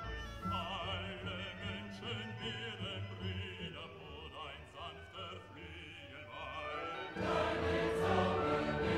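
Background music: classical-style operatic singing with a wide vibrato over sustained accompaniment, growing louder and fuller about seven seconds in.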